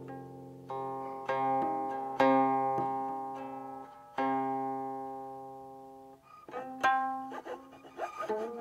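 Guqin solo: single plucked notes ring out and slowly fade a second or two apart, then a quicker cluster of notes near the end, some sliding in pitch as the stopping hand glides along the string.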